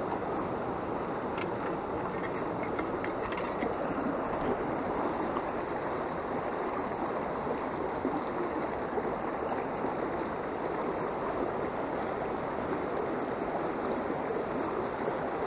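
Clear mountain trout stream rushing over rocks through a shallow riffle: a steady rush of water.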